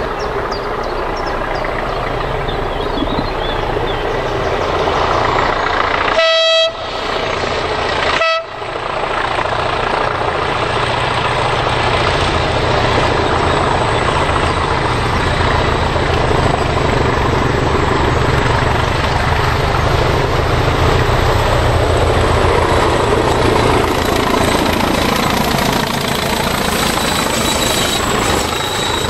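A pair of Class 20 diesel locomotives, each with an English Electric 8SVT engine, run under power hauling a train as they draw closer, with a steady, throbbing engine beat that grows louder. A locomotive horn sounds two short blasts, about six and eight seconds in.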